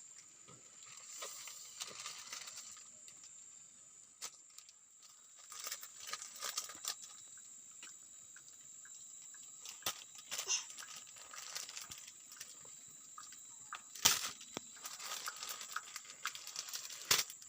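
Faint, scattered rustling and light clicks of close handling, with a couple of sharper clicks near the end.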